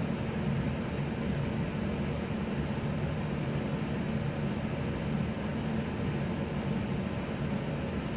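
A steady low mechanical hum from a running machine, unchanging throughout.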